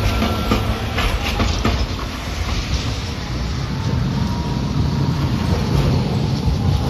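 Hiroshima Electric Railway (Hiroden) tram rolling past on street track, its wheels clacking over the rail joints for the first couple of seconds. Then a steady low rumble as the next tram approaches.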